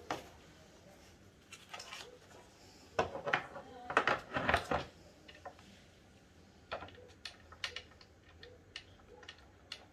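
Hands handling hardware: a few seconds of rustling and scraping about three seconds in, then a run of light clicks, roughly two a second, near the end.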